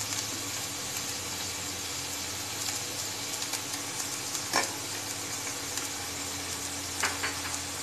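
Chopped onion, capsicum and green chilli sizzling steadily in hot oil in a frying pan, with a short click about four and a half seconds in and a few more near the end.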